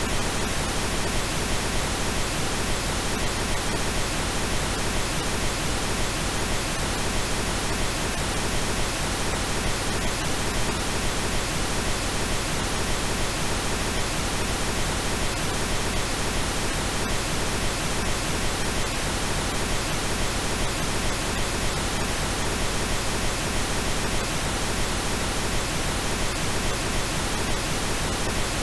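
Steady computer-generated pink noise: a constant, even hiss spread across the whole pitch range, with no change in level.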